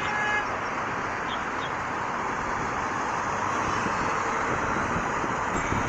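Steady roar of road traffic on a busy city street.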